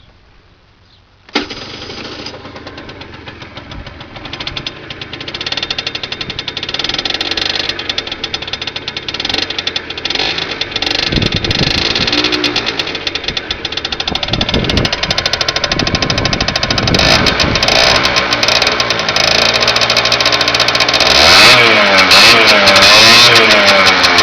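Stock Gilera NRG MC2 scooter's 50cc two-stroke engine starting suddenly about a second in and running, getting louder as it is revved a few times, then blipped up and down in quick repeated revs near the end.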